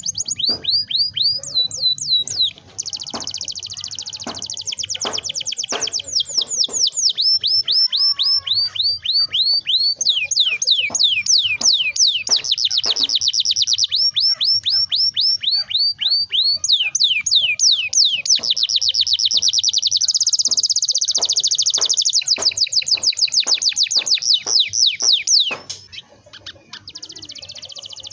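Domestic canary singing long rolling trills: fast runs of repeated falling notes, one roll after another. There is a brief break a few seconds in, and the song drops off near the end.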